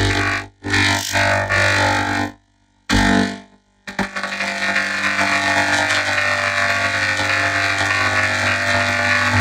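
Music that is cut off abruptly twice, with short silences about two and a half and three and a half seconds in and a short loud burst between them, then runs on steadily from about four seconds.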